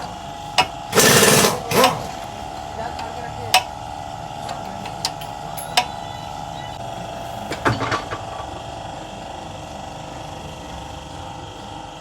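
Car-repair work on a front wheel hub: a loud, short rattling burst of a power tool about a second in and a second shorter one just after, then scattered metallic clicks and knocks of hand tools, over a steady hum.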